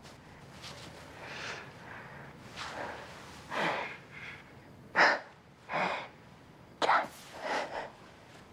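A person crying softly: about six short, irregular breathy sniffs and gasps, the sharpest two in the second half.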